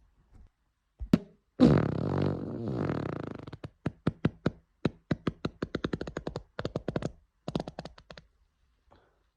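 A long, drawn-out fart with a buzzing pitch, then a rapid run of short sputtering fart pops, about four or five a second, lasting some four seconds.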